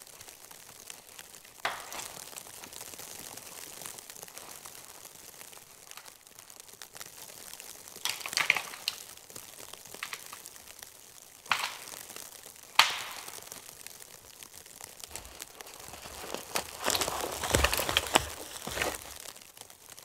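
Dead wood cracking and snapping several times: one sharp crack about two seconds in and more in the middle. Near the end, footsteps crunch through snow and brush and come closer as a long dead branch is carried in.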